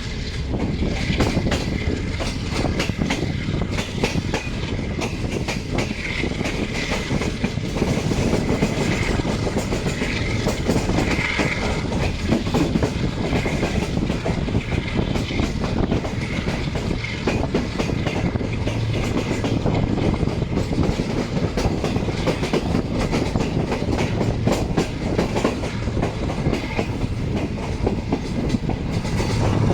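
Pakistan Railways Green Line Express passenger train running on the rails: a steady rumble with the wheels clicking over the rail joints.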